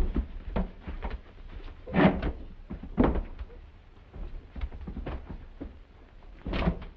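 A run of irregular knocks, bangs and thumps, like doors banging and a scuffle, the loudest at the start and about two and three seconds in. The sound is narrow and dull, as on an old film soundtrack.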